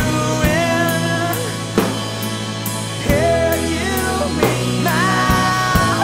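Background rock music: a band with a drum kit, the snare hitting about every 1.3 seconds, under sustained guitar and sung notes.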